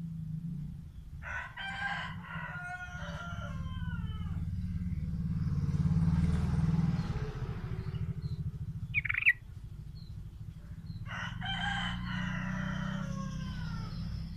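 A rooster crows twice, each a long, many-toned crow that falls away at the end, the second near the end. Between them comes one short rising bird chirp, over a steady low hum.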